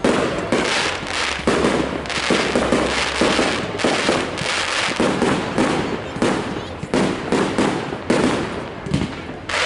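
Aerial firework shells bursting in quick succession during a display: a rapid, continuous series of loud bangs, about two a second.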